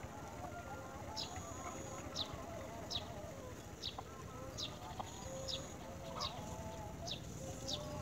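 Nestlings begging with thin, high chirps that slide downward, about one a second, over a lower, wavering warble in the background.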